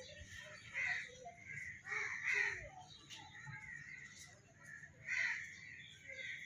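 Short harsh animal calls, three louder ones about a second in, around two seconds in and about five seconds in, with fainter ones between.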